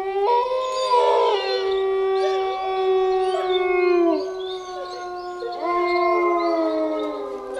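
A chorus of canine howls: several long, overlapping howls at different pitches, each held and then gliding down, easing around four seconds in before new howls rise near six seconds.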